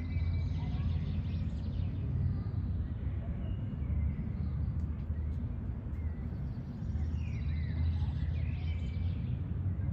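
Outdoor ambience: a steady low rumble like wind on the microphone, with faint bird chirps, the clearest a few quick calls about seven to eight seconds in.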